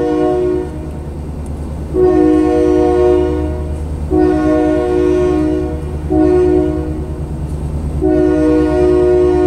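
Diesel locomotive air horn sounding in chord blasts: one note ending about half a second in, then two long blasts, a shorter one, and another long one starting near the end. This fits the long-long-short-long grade-crossing signal. Under the horn runs the steady rumble of autorack freight cars rolling past.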